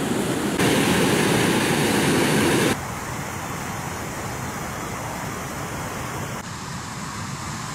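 Water rushing over a river weir, a steady rushing noise that cuts off suddenly about three seconds in, leaving a quieter steady outdoor hiss.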